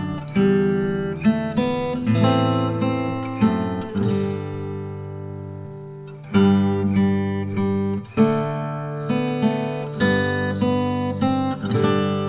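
Background music of acoustic guitar strumming and picking chords, with one chord left ringing for about two seconds near the middle.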